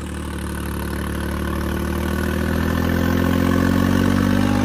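John Deere 5210 tractor's diesel engine pulling hard under load in a tractor tug-of-war, pouring black smoke; its revs climb slowly and it gets steadily louder.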